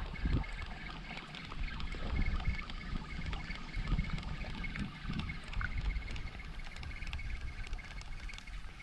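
Wind buffeting the microphone with an uneven low rumble, a faint steady whine and a few light ticks underneath.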